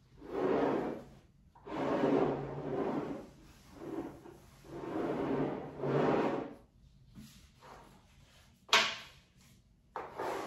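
Cloth being rubbed across a wooden coffee table top in five long wiping strokes, followed near the end by a single sharp knock on the table.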